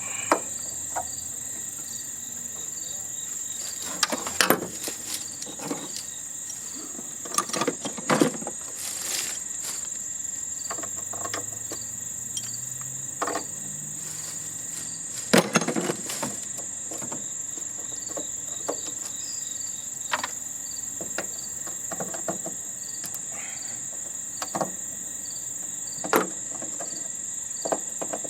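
Steady high-pitched insect chorus with regular faint chirps, broken by scattered metallic clanks and knocks from tools working on a heating and air-conditioning unit being taken apart, the loudest about 4, 8, 15 and 26 seconds in.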